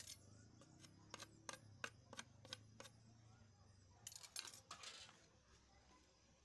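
Light wooden clicks and knocks, several single ones in the first three seconds, then a short cluster of clicking and scraping about four seconds in as the wooden broom handle is fitted into the socket of the broom head.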